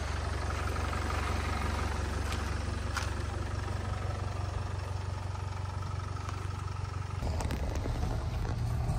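A Range Rover Evoque SUV idling with a steady low hum. About seven seconds in, a few clicks and a clunk come as a car door is opened and shut, and the idle then sounds fuller as heard from inside the cabin.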